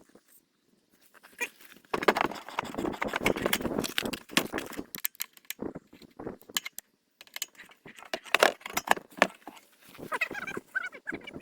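Irregular clattering, clicks and knocks of equipment being handled. Near the end a turkey gobbles with a quick warbling call.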